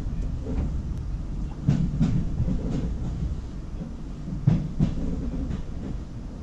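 Renfe series 470 electric multiple unit running, heard from on board: a steady low rumble with the wheels clacking over rail joints in two pairs of knocks.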